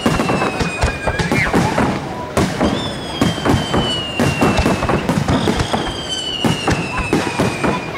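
Fireworks display: shells bursting and crackling in a dense, continuous barrage of bangs and pops. Three long high whistles slide down in pitch over it, one near the start, one in the middle and one near the end.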